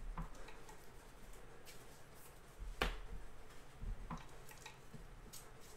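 Trading cards handled by hand: a few soft clicks and taps as cards are flipped and shifted against each other, the sharpest about three seconds in.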